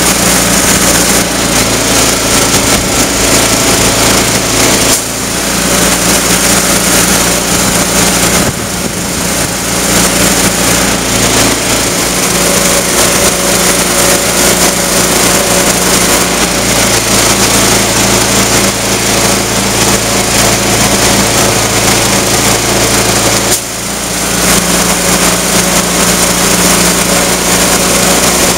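Engine-driven air compressor running steadily under a continuous hiss of air, inflating a large tractor tire to seat its bead back on the rim. The level dips briefly three times.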